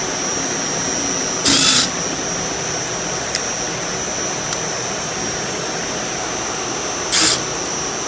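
Two short bursts of a cordless drill/driver, about a second and a half in and again near the end, over steady machine-room air noise with a faint high whine.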